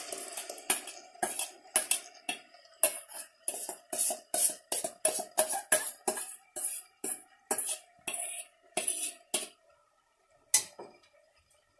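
Metal spoon scraping and knocking inside a stainless steel mixer-grinder jar, about two sharp clinks a second, as ground paste is scraped out into a pressure cooker. The clinks stop after a last knock near the end.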